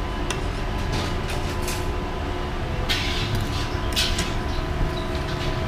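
Steady low rumble of street traffic with a faint steady hum, and a couple of short clinks about three and four seconds in.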